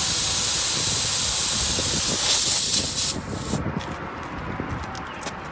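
A loud, steady hiss of gas escaping under pressure during a tire plug repair, cutting off about three seconds in. After it come faint clicks and handling sounds.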